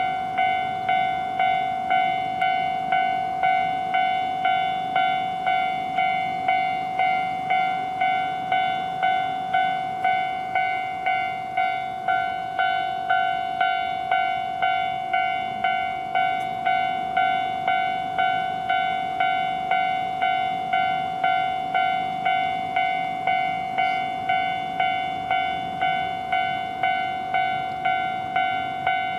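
Japanese railroad crossing warning bell ringing its steady "kan-kan", a bright tone struck a little under twice a second, signalling an approaching train.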